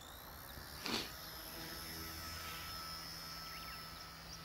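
XK K110 micro RC helicopter's electric motor and rotor running steadily as it hovers at a distance, a thin high whine over a low hum. A sharp click about a second in.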